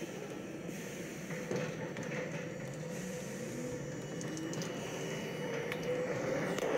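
Subway train running sound, a steady rumble with a faint whine that slowly rises in pitch, with a few light clicks about four seconds in.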